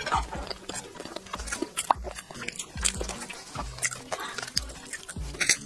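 Close-miked chewing of a soft-boiled egg, with wet mouth clicks and a steady chewing rhythm. Near the end a crayfish shell crackles as gloved hands pull it apart.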